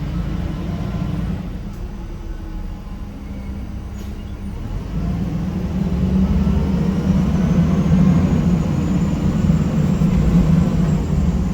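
Cummins ISM diesel engine of a 1993 Gillig Phantom transit bus, heard from on board, running with a steady low hum. From about five seconds in it pulls harder and grows louder, with a faint rising whine above the hum.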